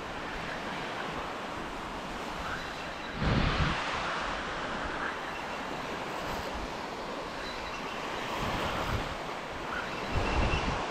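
Small surf washing onto a sandy beach with wind buffeting the microphone, a steady rushing noise. A louder rush comes about three seconds in and again near the end.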